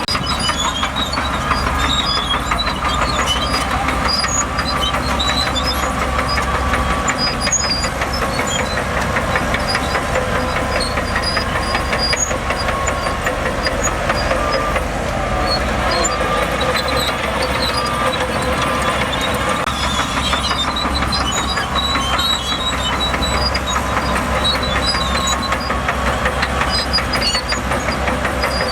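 Crawler bulldozer (Shantui DH17C2) working steadily: its diesel engine running under load with a rapid, even clatter, and a faint whine that wavers in pitch.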